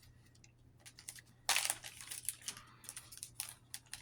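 Sticker-pack packaging crinkling and rustling in the hands as it is opened, in a run of small crackles with a louder rustle about a second and a half in.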